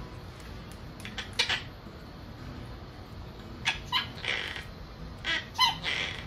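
Pet parrot giving short, pitched squawking calls in three clusters: once about a second in, then around four seconds in and again near the end.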